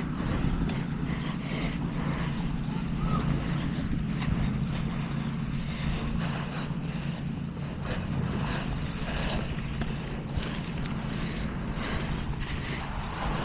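Zero-turn riding lawn mower engine running steadily under way.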